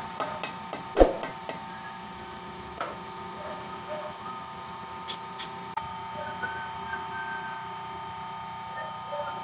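Steel hammer tapping on a Bajaj RE rear hub to seat the oil seal in the bore: a few quick light taps, one sharp hard strike about a second in, then a single tap near three seconds. A steady hum of several tones runs underneath.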